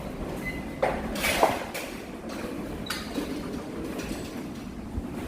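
Strong typhoon wind rumbling steadily, with loose metal clanking and scraping: the loudest knocks come about a second in and again half a second later, with short metallic squeals.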